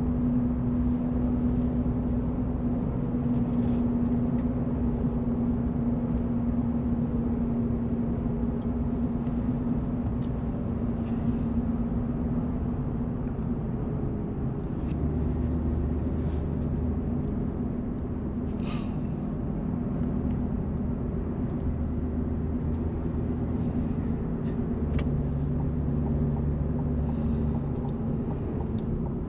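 Steady in-cab drone of a pickup cruising at highway speed: its 3.0 L Duramax inline-six turbo diesel running with raised RPMs during an active DPF regeneration, under road and tyre noise, with a steady low hum in the first half.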